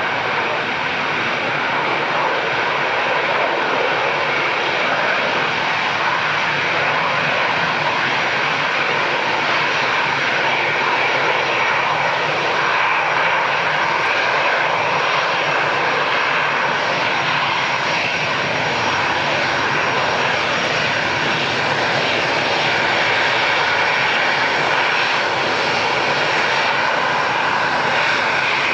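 Jet airliner engines running at high takeoff thrust: a loud, steady rush of noise with a faint high whine, holding nearly level throughout.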